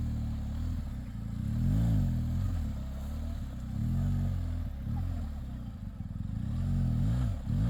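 Motorcycle engine revving up and dropping back several times, each rise and fall lasting a second or two, as the bike is worked along under load.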